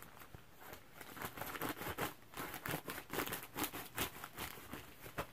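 Scissors cutting open a mailer envelope, with irregular snips and the crinkle of the envelope being handled.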